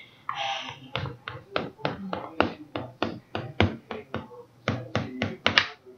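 A table knife tapping repeatedly on the bottom of a metal baking pan as it chops down through a frosted sheet cake: a quick, uneven run of sharp taps, roughly four a second, starting about a second in, after a short scrape.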